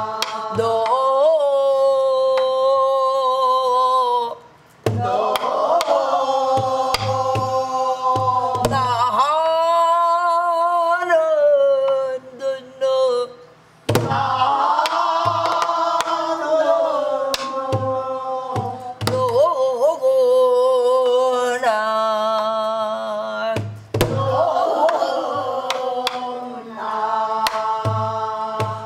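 A woman singing Korean guum, wordless vocal syllables in pansori style, holding long notes with a wide vibrato, to her own soribuk barrel drum: deep palm thumps and sharp stick strokes at irregular spacing. The singing and drumming break off briefly about five seconds in and again near the middle.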